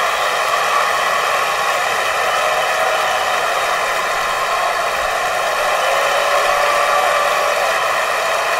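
A large concert audience applauding: dense, steady clapping with scattered cheers and shouts on top.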